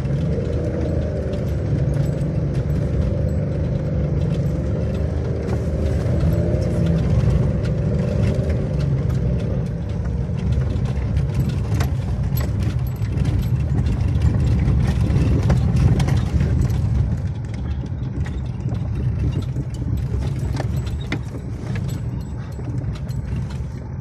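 A car driving over a rough, stony dirt road, heard from inside the cabin: steady engine and tyre rumble with frequent rattles and knocks from the bodywork and gravel.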